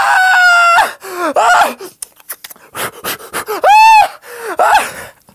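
A man's high-pitched yelling and shrieking as mock battle cries: a held cry at the start, a few short yelps, then a loud rising-and-falling shriek about four seconds in.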